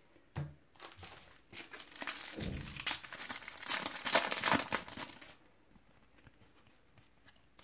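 Foil trading-card pack crinkling and tearing as it is ripped open by hand, for about five seconds. After that come faint ticks of the cards being handled.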